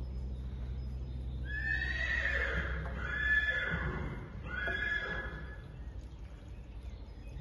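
Young grey PRE stallion neighing: a long whinny in three drawn-out pulses, starting about one and a half seconds in.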